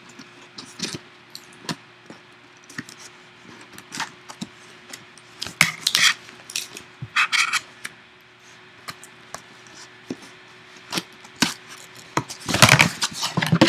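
A cardboard trading-card box being opened by hand: scattered scrapes, taps and rustles of cardboard and wrapping, with a louder stretch of rustling and scraping near the end.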